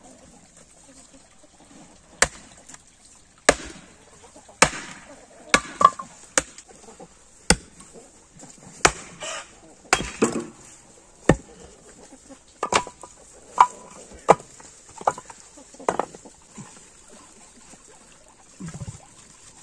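Knife chopping on a cutting board: a string of sharp knocks at an irregular pace, some ringing briefly.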